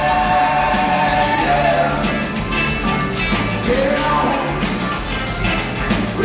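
Live rock band playing: electric guitars, drum kit and keyboards, with a man singing held notes near the start and again around four seconds in.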